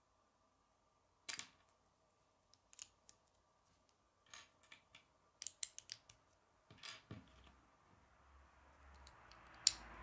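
Small plastic Lego bricks clicking as pieces are handled and pressed together, in scattered single clicks and quick clusters, with a soft hiss building up near the end.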